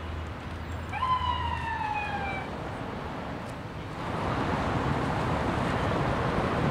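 City street traffic noise with a low engine drone, and one siren wail about a second in that rises briefly and then falls slowly for about a second and a half. About four seconds in, the traffic noise grows louder.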